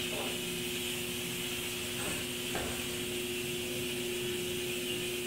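Shower spray running steadily, an even hiss of falling water, with a low steady hum beneath it.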